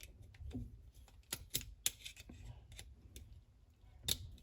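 A handful of sharp metal clicks from the scissors of a Leatherman Surge multitool being opened and closed by hand. The scissors lock is defective and does not engage.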